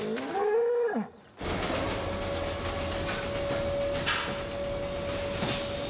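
Slaughterhouse cutting-room machinery running with a steady hum and an even, constant whine, and a few short knocks and clanks. It is preceded in the first second by a drawn-out call whose pitch rises and falls, cut off suddenly.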